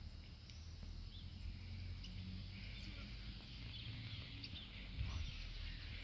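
Faint rural outdoor background: a steady high hiss and a low rumble, with a few faint bird chirps.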